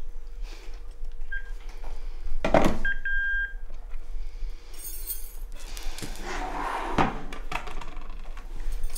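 Cordless phone handset beeping as the call is ended: a short beep about a second in, then a longer one about three seconds in. A knock just before the second beep and a few softer knocks and rustles around them.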